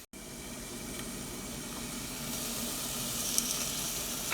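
Chopped onions with ginger and garlic paste sizzling in melted butter in a pan: a steady frying hiss that grows slightly louder.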